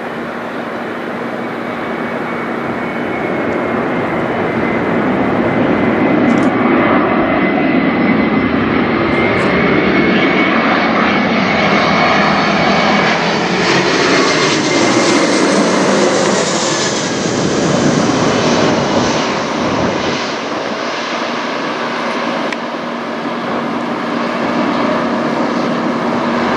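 Jet engines of an Airbus A321-211 airliner flying over on its approach to land. The sound builds over the first several seconds and stays loud while the plane passes.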